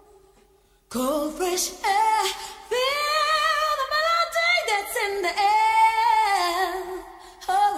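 A woman singing a song in sustained phrases with vibrato, with little or no instrumental backing; the voice comes in about a second in after a short pause.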